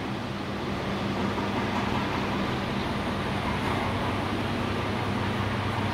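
Steady low hum with an even hiss of background noise, unchanging throughout.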